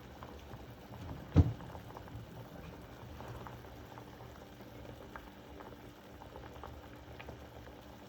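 Pot of freshly boiled tea still bubbling gently after the heat is turned off, with many small scattered pops. One sharp knock about a second and a half in.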